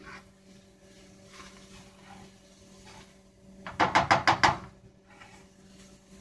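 A spatula knocking against a skillet on the stove: a quick run of about seven clacks in under a second, about four seconds in, over faint sizzling of butter frying a grilled cheese sandwich.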